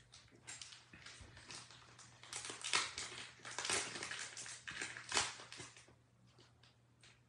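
Crinkling and rustling in irregular bursts, loudest in the middle and dying away about six seconds in.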